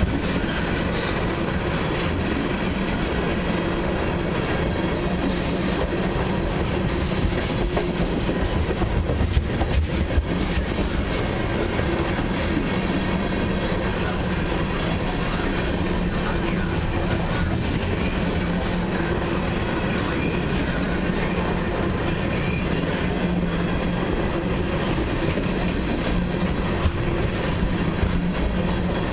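Long freight train of mixed cars and autoracks rolling past: a steady rumble of steel wheels on rail, with scattered clicks.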